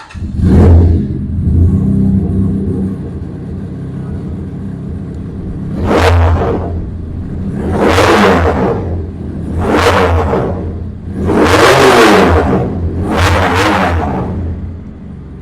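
Kawasaki motorcycle engine idling, blipped about six times: a rev right at the start, then five more revs, the longest about twelve seconds in, each rising and falling back to idle.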